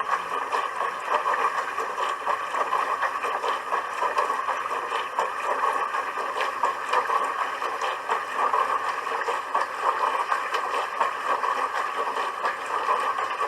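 Dishwasher running its wash: a steady rush of water spraying and sloshing inside the tub, flickering quickly in loudness without a break.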